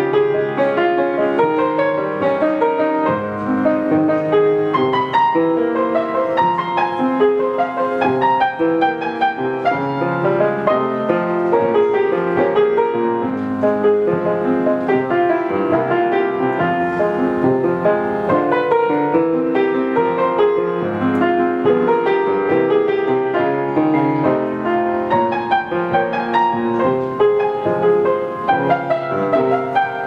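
Solo piano piece played on a 19th-century Schröder grand piano, a continuous flow of notes at an even loudness without a break.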